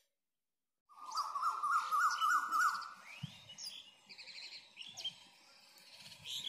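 Birds chirping and calling, starting about a second in: first a quick run of short rising whistled notes, then a mix of higher chirps and trills.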